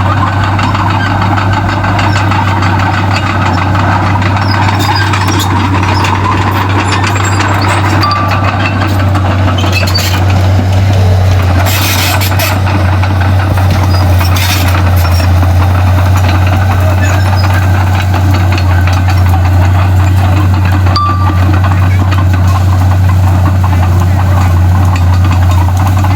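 Heavy diesel engine of a construction machine running steadily with a deep drone. Two short hisses come about halfway through.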